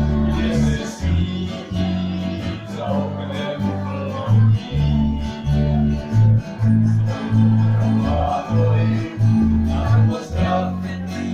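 Instrumental break in a Czech folk song: acoustic guitar strumming over a line of changing low bass notes.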